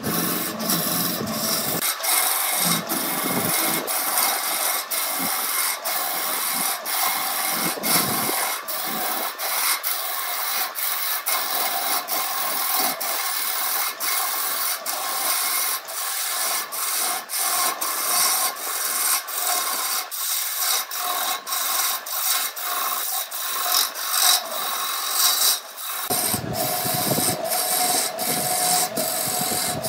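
Turning chisel cutting a large spinning wood blank on a wood lathe: a continuous rasping, shaving hiss broken by repeated sharp ticks. Near the end a low rumble and a steady hum from the lathe come in under the cutting.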